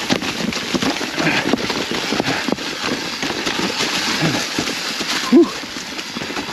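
Mountain bike rolling fast down a rocky trail covered in dry leaves: a dense crackle and clatter of tyres over leaves and rocks, with the bike rattling. A brief loud sound rises and falls in pitch about five seconds in.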